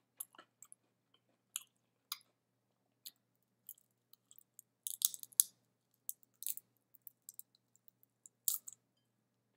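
Close-miked chewing and wet mouth clicks from eating a piece of fried shrimp tempura out of the fingers. The sounds come as scattered short smacks, with a louder cluster about five seconds in and another near the end.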